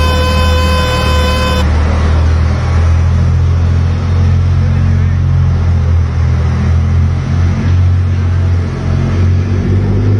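A steady horn tone cuts off about a second and a half in, giving way to a loud, steady low engine rumble with a rushing noise over it.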